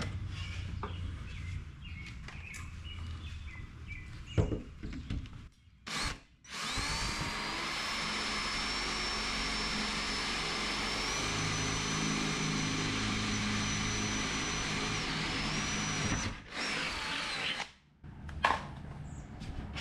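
Power drill boring a mounting hole through the Jeep door's sheet metal. It runs steadily for about ten seconds with a high whine, stops, then gives one short burst more.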